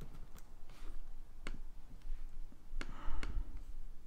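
A few separate clicks on a laptop, about four spaced a second or so apart, over a low steady room hum.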